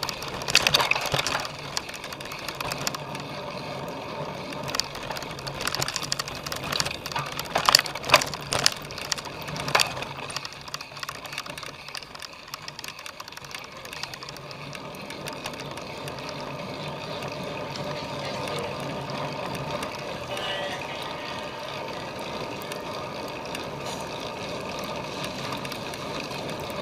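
Cyclocross bike clattering as it is ridden over rough ground, with many sharp knocks and rattles over the first ten seconds, then a steadier rushing noise.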